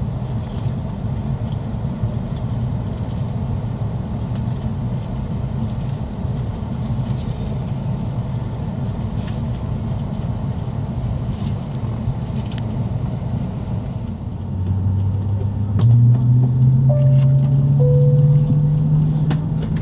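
Steady low cabin hum of an Airbus A330 airliner sitting at the gate. About two-thirds of the way through it gets louder and a low note comes in, jumps up and then climbs slowly, a jet engine spooling up as pushback begins. Two short higher notes, the second lower than the first, sound in the middle of it.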